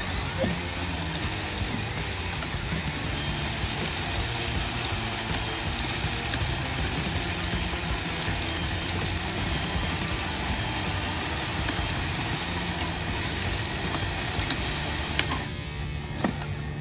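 Electric motors and gearing of a radio-controlled construction model whirring steadily, with a thin whine that wavers in pitch, over background music. The machine noise drops away near the end.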